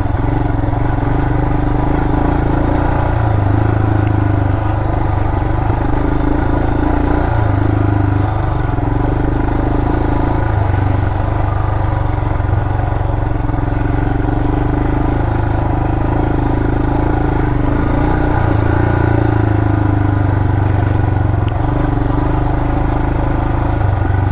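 Royal Enfield Himalayan's single-cylinder engine running as the bike rides along a dirt trail, revs rising and easing a little, picked up by a helmet-mounted mic.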